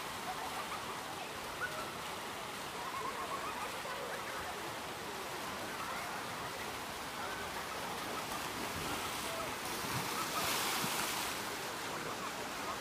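Water park ambience: a steady rush of water running down a multi-lane water slide and pouring into the pool, with faint distant voices and shouts. About ten seconds in a louder hiss rises for a second or so.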